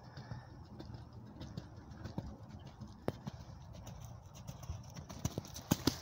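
Hoofbeats of a ridden horse on a sand arena, a run of irregular thuds and clicks that grow louder near the end as the horse passes close by.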